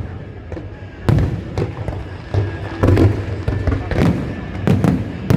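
Aerial fireworks bursting in quick succession: about eight loud booms in five seconds, each trailing off in a low rumble.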